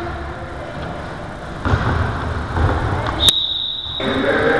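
Echoing indoor sports-hall noise during a handball game: a general rumble of players and spectators that grows louder about a second and a half in. Near the end a sharp click and a short, steady high tone, while the hall noise drops out for a moment.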